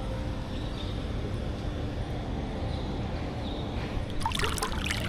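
Steady low rumble of outdoor background noise, with a few short splashes of water starting about four seconds in.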